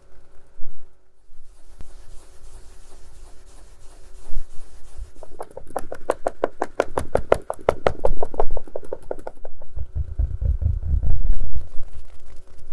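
A case being handled and tapped. In the middle comes a quick, even run of crisp taps, about six a second, and near the end there is low rumbling handling noise.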